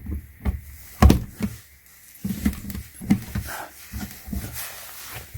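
Plastic clicks and knocks as a small wall-outlet camera charger is handled and pushed into a wall outlet, with one loud knock about a second in.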